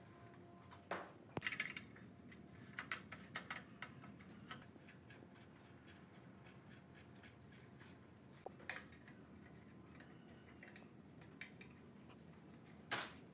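Light clicks and clinks of small metal parts being handled on an old belt-driven air compressor, in short scattered clusters, with one much louder sharp knock near the end.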